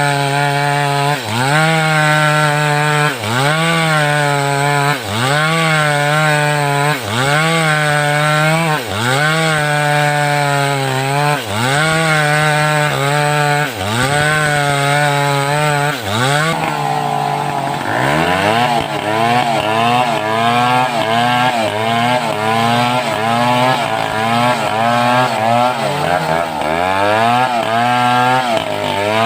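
Home-built two-stroke chainsaw ripping a mindi log lengthwise. The engine note dips and recovers about every two seconds; a little past halfway it begins rising and falling faster and less evenly.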